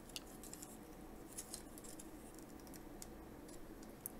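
Faint, scattered small clicks and taps of plastic Transformers figure and add-on kit parts being handled and turned in the hands as a part is fitted.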